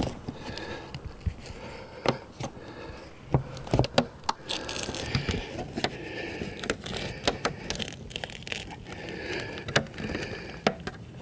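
A metal scraper blade scraping and prying under a plastic skylight flange, breaking it loose from old self-leveling lap sealant. Continuous scraping with irregular sharp clicks and crackles as the sealant lets go.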